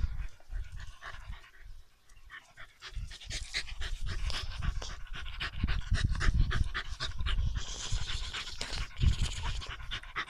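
Dog panting quickly and excitedly while being petted. Low rumbling bumps come from the phone being jostled against the dog.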